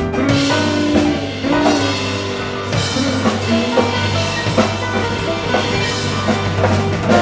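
A live instrumental band plays: grand piano, electric guitar and electric bass over a drum kit keeping a steady beat.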